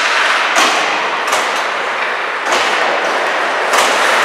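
Ice hockey play in an echoing rink: about four sharp knocks of puck and sticks, spread over a few seconds, over a steady noisy rink background.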